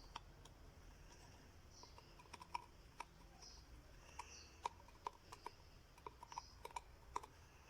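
Faint, irregular small clicks and taps, about a dozen, mostly in the second half, with faint short high-pitched chirps in between.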